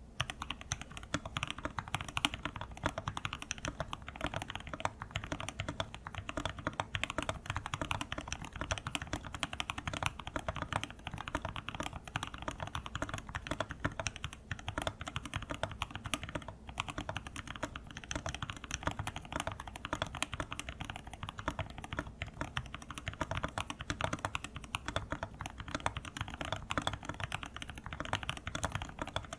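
Fast, continuous typing on a Linworks Whale 75 mechanical keyboard fitted with Domikey x iNKY Silent Forest keycaps: a dense, unbroken stream of keystrokes.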